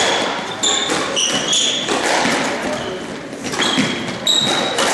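Squash rally on a wooden court: rubber-soled shoes squeak in many short, high chirps as the players turn and push off, between sharp knocks of the ball off racquets and walls.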